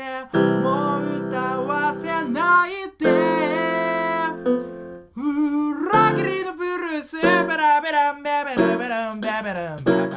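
A man singing with his own electric keyboard accompaniment, held chords under a wavering vocal line that turns into long bending melismatic runs about halfway through.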